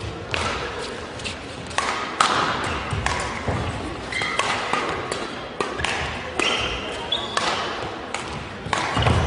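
Badminton rally: rackets striking the shuttlecock about once a second, with short squeaks of shoes on the court floor.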